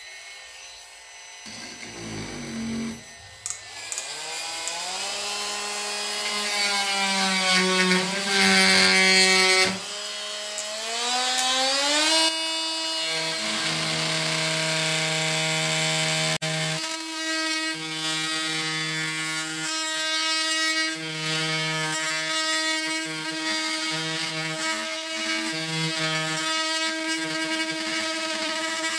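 Parkside PAMFW 20 Li B2 cordless oscillating multi-tool with a diamond blade, grinding out grout from a tile joint. Its motor whine rises in pitch over several seconds, then holds steady, with a lower hum cutting in and out as the blade works the joint.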